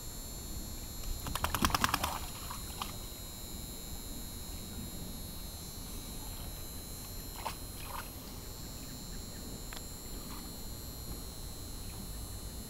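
Dog in a shallow plastic tub of water: a quick run of sharp wet clicks and splashes about a second and a half in, then a few scattered ticks.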